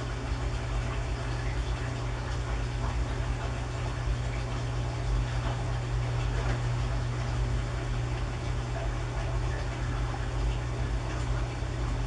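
A steady low mechanical hum with a rumble beneath it, like an engine idling, unchanging throughout.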